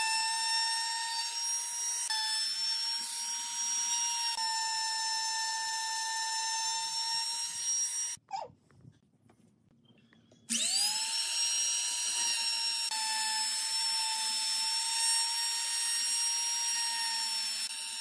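A trim router runs at a steady high whine while it cuts wood along a template. About eight seconds in it winds down and stops. Some two seconds later it is switched on again and spins back up to speed.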